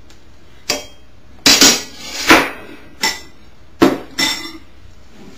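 Serving utensils knocking and scraping against a dish and plate as pieces of Polish sausage are served: about six sharp clatters, two of them longer.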